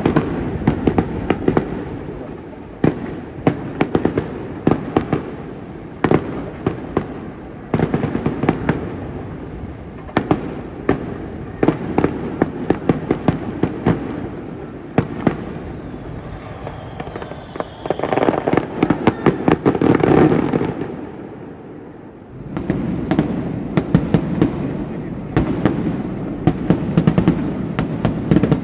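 Fireworks display: aerial shells bursting in quick succession, many sharp bangs one after another. About sixteen seconds in there is a falling whistle, then a dense stretch of crackling until a short lull, before the bangs resume.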